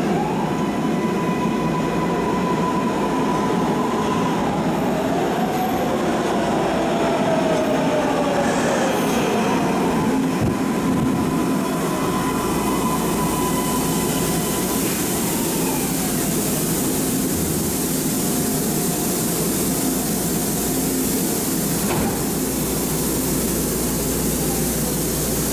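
MARTA rapid-transit train pulling into an underground station and braking to a stop. A steady high whine and shifting tones die away about 16 seconds in. The train then stands at the platform with a steady hum and hiss, and there is a sharp click near the end.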